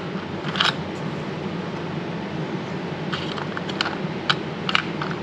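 Scattered light clicks and taps of small screws and hardware being handled while fitting a fuse block to a truck's firewall, over a steady low background hum.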